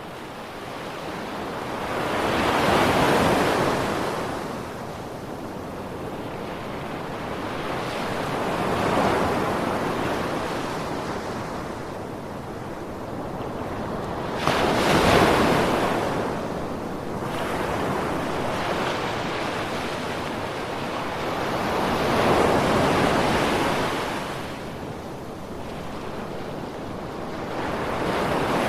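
Ocean surf: waves breaking and washing in, swelling and fading about every six to seven seconds. The sharpest break comes about halfway through.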